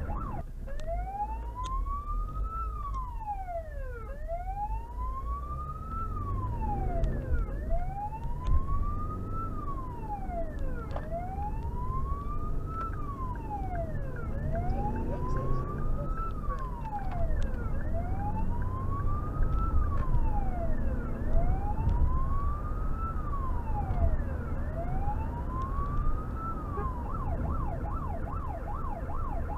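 Fire service response vehicle's electronic siren on a slow wail, each cycle rising for about two seconds and falling back, about eight cycles, then switching to a fast yelp near the end. The vehicle's engine and road noise run underneath, heard from inside the vehicle.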